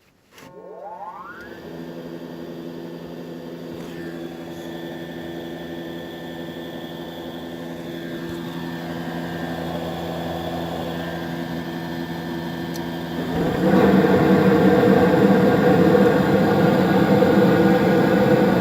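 HVAC unit starting up after a repair: a motor spins up with a quickly rising whine about half a second in, then runs with a steady hum. About 13 seconds in, a louder rushing air sound comes in on top as a second motor or stage starts, and the unit runs on.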